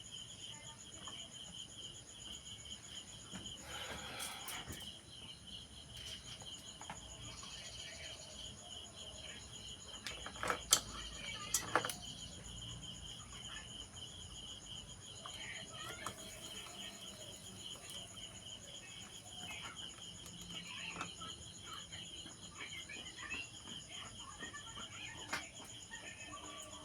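Crickets trilling steadily in the background, with scattered faint clicks and taps; two sharp clicks stand out about eleven and twelve seconds in.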